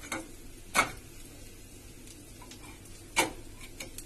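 Steel plate knocking against the gas stove's metal grate as it is handled: two sharp clicks about two and a half seconds apart, with a few lighter ticks, over a faint steady frying hiss.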